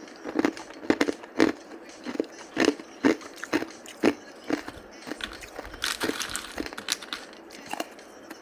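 Hard ice being bitten and chewed close to the microphone: sharp, irregular crunches about two a second, with a denser grinding crunch around six seconds in.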